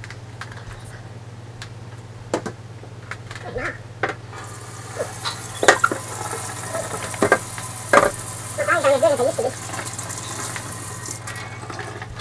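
Kitchen faucet running into a stainless steel sink from about four seconds in until near the end, while a salmon fillet is handled on a metal baking sheet, with knocks and clatter from the sheet. A low steady hum lies underneath.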